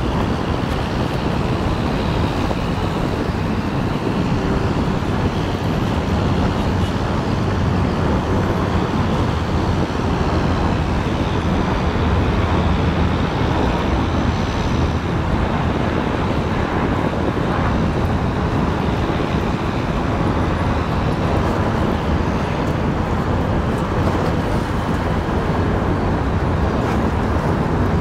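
Steady road traffic noise, a continuous low rumble with no single vehicle standing out.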